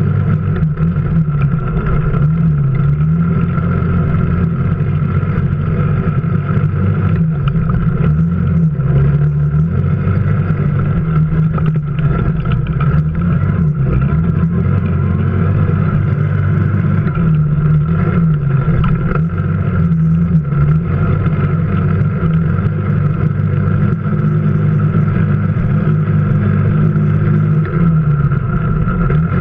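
Off-road vehicle's engine running continuously while driving over rough ground, its pitch rising and falling every few seconds as the throttle changes.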